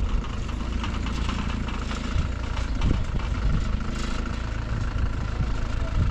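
A motor vehicle's engine running with a steady low rumble, with a few short knocks along the way.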